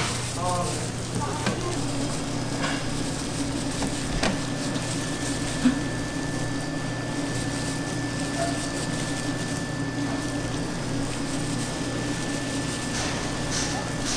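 Steady hiss and low hum of a street-food stall's cooking area, with a few light clinks.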